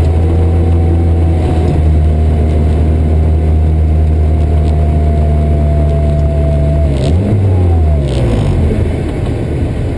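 The Eichhörnchen rally car's 1600 cc turbocharged engine running at steady high revs under load, heard from inside the cabin, with a steady whine above it. About seven seconds in, the revs rise briefly and then fall away as the car slows, with two short hisses.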